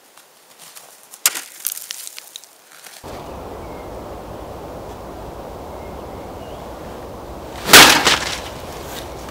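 A homemade spear with a knife blade for its head strikes a magazine propped against a wooden board, with one loud, sharp impact near the end, over a steady outdoor hiss. A few light knocks come earlier.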